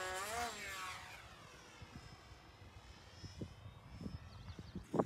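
Electric motor and propeller of a small RC plane (a 3D printed UMX Timber) at full power on takeoff: a whine that wavers up and down in pitch over the first second, then fades steadily as the plane climbs away.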